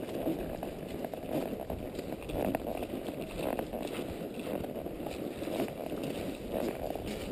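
A Quarter Horse walking under a rider on a dirt trail: soft, irregular hoof steps over a steady low rustling noise.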